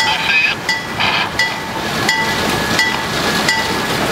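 Alco S2 diesel switcher locomotive, with its turbocharged six-cylinder 539 engine, running along the track, heard from a car driving alongside. Under the steady running noise there is a regular pitched tick a little under twice a second.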